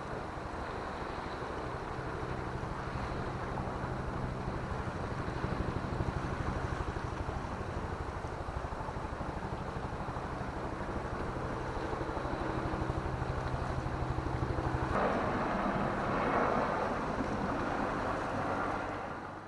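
A steady low engine drone, like a boat motor, under wind and surf sounds. About fifteen seconds in, a louder rushing wash of water comes in.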